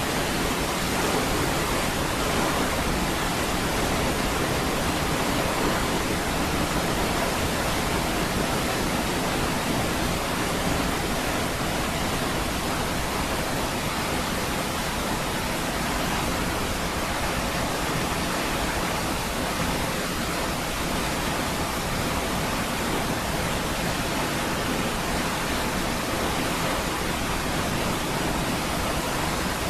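Niagara Falls pouring steadily: a constant, even rush of falling water with no breaks or changes.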